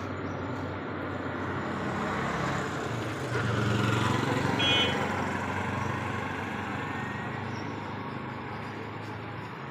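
A motor vehicle's engine passing close by, growing louder to a peak about four to five seconds in and then fading, over steady traffic noise. A brief high-pitched chirp sounds near the peak.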